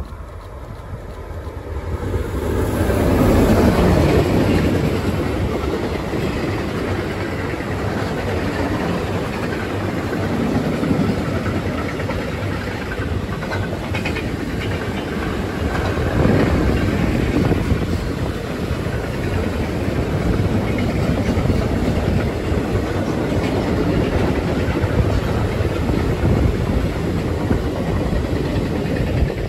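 Freight train passing close by behind a DB Cargo electric locomotive: the sound swells as the locomotive goes by about three seconds in, then a long string of empty double-deck car-carrier wagons rolls past with a steady rumble of wheels on rail.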